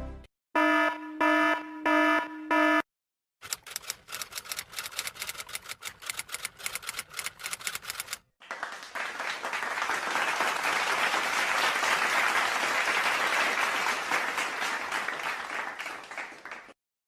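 Stock sound effects played one after another: a buzzer-like tone sounding four times, then a few seconds of fast irregular clicking, then a long steady hiss like applause.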